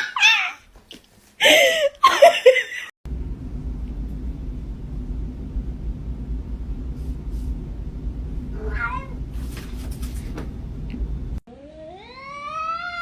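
Cat meowing: short calls in the first few seconds, a brief wavering meow over a low rumble midway, and a long yowl rising in pitch near the end.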